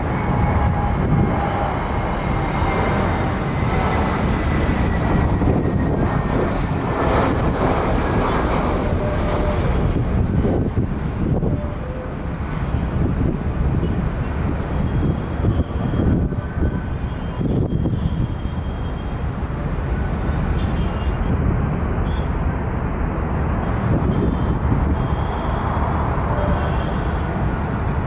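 Jet airliner engines running, a steady rumble with a faint whine that slowly falls in pitch over the first several seconds.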